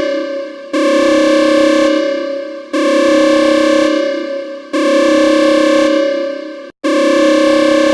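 Electronic alarm sounding a steady, horn-like tone in repeated blasts about every two seconds. Each blast starts loud and fades away before the next one begins.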